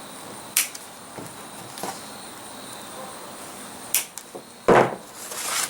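Zip tie tails being snipped off with cutters: a few sharp, separate snips, the loudest about three-quarters of the way through, followed by a rising rustle of handled plastic ties near the end.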